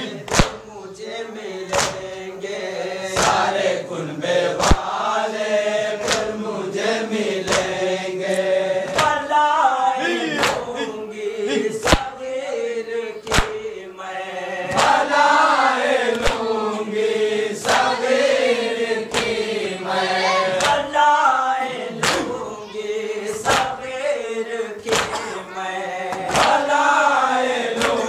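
Male voices chanting a Muharram noha (lament) in a slow, melismatic line, with a sharp beat keeping time about every three quarters of a second.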